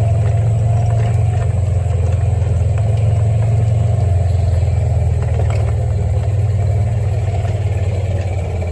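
Mini-split air conditioner's outdoor unit running close by: a steady, loud low machine hum with a slight pulse and a few faint clicks.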